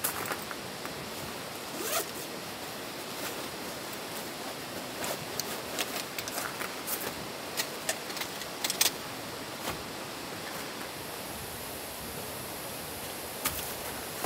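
Gear being handled in a van's cargo area: scattered clicks, knocks and rustles, with a cluster of them in the middle, over a steady outdoor hiss.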